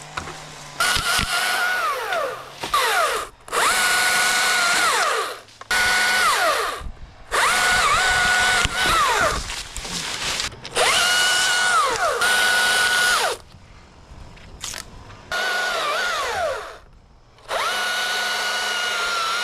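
Electric Husqvarna chainsaw cutting branches in about eight bursts of one to two and a half seconds. Each burst holds a steady high whine that falls away in pitch as the trigger is let go and the chain winds down.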